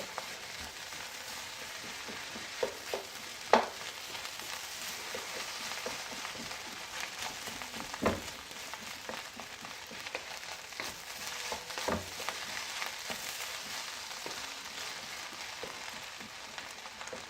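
Fried rice with green peas sizzling in a hot pan as it is stirred, a steady hiss broken by about ten sharp knocks and scrapes of the utensil against the pan.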